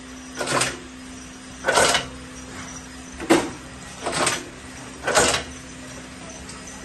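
Automatic accessory-attaching (snap and rivet setting) machine cycling: five short strokes about a second apart, over a steady hum.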